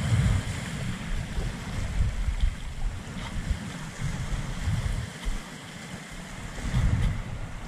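Small waves washing up a pebbly shore, with gusts of wind buffeting the microphone in uneven low rumbles.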